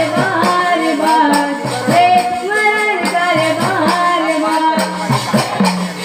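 Panthi folk dance music: a voice singing a gliding melody over drum and jingling percussion keeping a steady beat.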